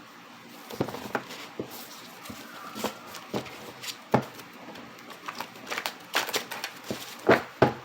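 Tarot cards being shuffled and handled: irregular light taps and crinkly rustles, with the loudest snaps near the end.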